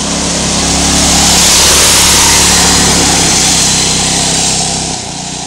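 Small engine of an off-road go-kart running at speed as it drives past on a gravel road, loudest about two seconds in as it goes by, then fading as it pulls away.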